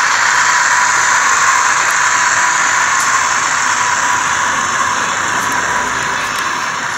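Model ÖBB class 2095 narrow-gauge diesel locomotive running along the layout track: a steady rushing hiss with a thin constant whine, slowly fading as the train moves away.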